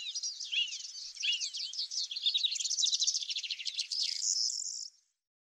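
Small birds singing, with quick, repeated chirps and twittering over a steady high insect buzz. The sound cuts off abruptly about five seconds in.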